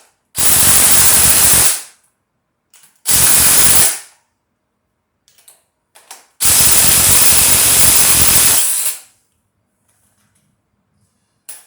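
An impact wrench run in three bursts on the bolts of a Chevy 307 small block. The bursts last about a second, a second, and two seconds, loud and hissing.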